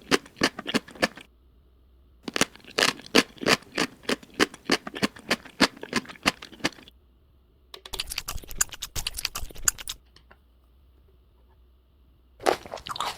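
Crunchy chewing: quick crisp bites at about four a second, in runs broken by pauses of about a second.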